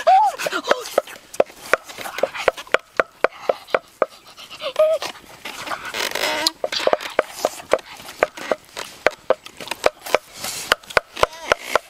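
Wood campfire crackling with frequent sharp pops, with a boy's short voiced hums and a long sniff about six seconds in.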